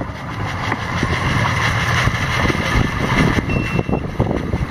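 A small boat's 40-horsepower outboard motor running at low speed, mixed with wind noise and waves splashing on choppy sea, a loud steady rumble.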